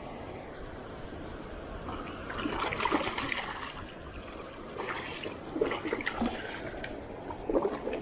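Water splashing and trickling in short bursts at the water's edge as a landing net works in the water, the first about two and a half seconds in and more around five seconds. Under it runs the steady rush of water released through the dam's spillway gates.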